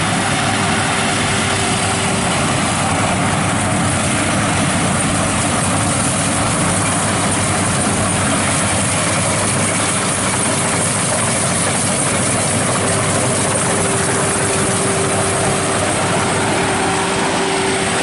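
Tracked rice combine harvester's engine and machinery running loud and steady at working speed, with a steady whine held throughout.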